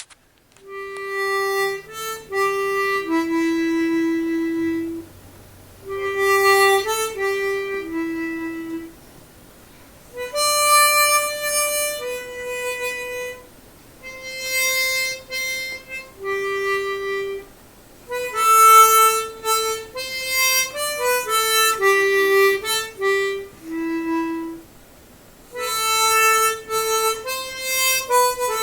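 Solo instrumental music: a wind instrument playing a slow melody in short phrases, with brief pauses between them.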